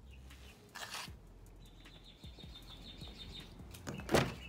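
Rustling and small knocks from handling things inside a car, over a steady low hum. A faint high trill runs for about two seconds in the middle, and a short, louder rustle or thud comes about four seconds in.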